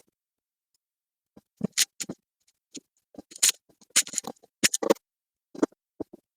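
Irregular clicks and scrapes of a screwdriver and screws working against the plastic back case of a flat-screen TV as its screws are taken out. It starts about a second and a half in, after a brief hush, with several sharper clicks in the middle.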